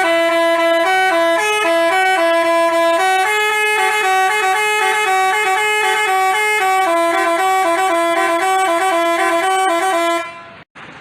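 Basuri telolet musical horn playing a fast melody of stepped, rapidly changing notes that breaks off near the end.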